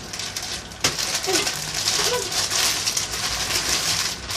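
Plastic candy packaging crinkling and rustling as it is handled and torn open. It starts with a sharp click about a second in, then runs on as a dense crackle.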